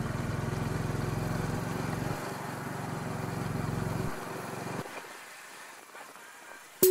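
Motorcycle engine running steadily at low speed while riding over a sandy washboard road, fading out about five seconds in. Music starts right at the end.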